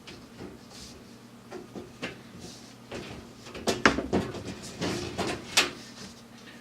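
Several sharp knocks and clacks of things being handled, the loudest a cluster about four seconds in and another single knock about five and a half seconds in.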